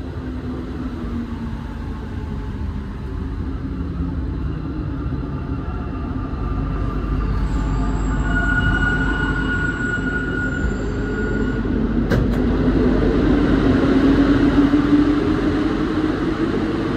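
Cabin sound of a rubber-tyred Alstom NS-93 metro car running between stations: a steady rumble that grows slowly louder. A high whine holds for a few seconds about halfway through, then a low tone rises in pitch along with a single sharp click.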